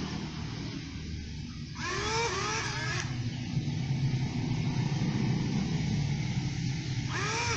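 Small electric quadcopter motors and propellers of a homemade RC boat running with a steady buzz. Short wavering calls that rise and fall in pitch cut in about two seconds in and again near the end.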